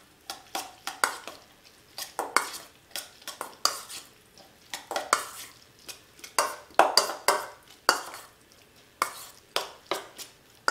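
A metal spoon stirring diced raw salmon in a stainless steel mixing bowl, the spoon clinking and scraping against the bowl in short, irregular strokes, about two or three a second.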